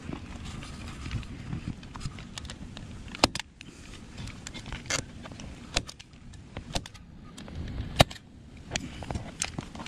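Staple gun driving staples through vinyl into a jet ski seat base: sharp clacks at irregular intervals, about seven of them from about three seconds in, the loudest near the eight-second mark, over a low rumble of handling noise.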